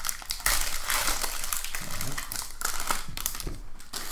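Foil wrapper of a football trading-card pack being torn open and crinkled by hand: a dense run of crackling rustles, loudest in the first second and a half, then lighter.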